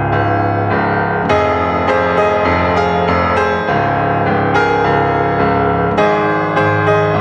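Instrumental background music: a melody of sharply struck notes that ring and fade, over a sustained low bass.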